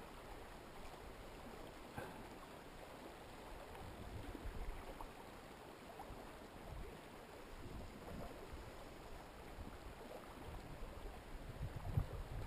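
Faint, steady rush of a shallow river running over cobbles, with uneven low rumbles now and then and a sharper knock near the end.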